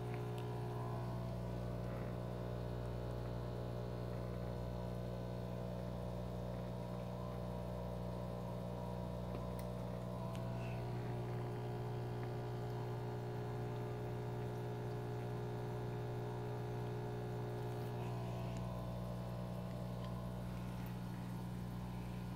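Aquarium pump humming steadily, with water bubbling in the tank.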